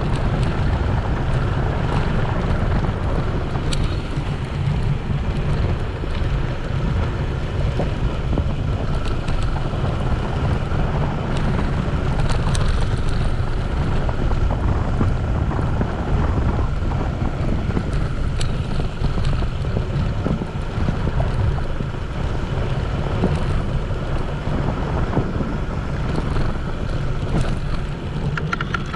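Wind buffeting a handlebar-mounted camera's microphone, over the rumble of bicycle tyres rolling on a dirt road, with a few faint ticks and rattles.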